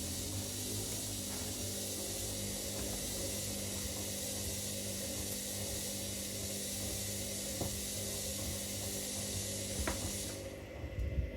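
Two washing machines running mid-cycle, giving a steady mechanical hum with a high hiss over it. The hiss cuts off abruptly about ten seconds in, and a few faint clicks are heard.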